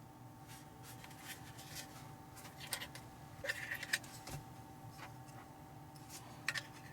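Faint handling sounds of unboxed items and packaging: scattered light clicks and taps, with a short rustle a little past the middle, over a low steady hum.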